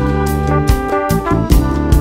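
Background music: an upbeat jazz tune with brass instruments over a steady beat.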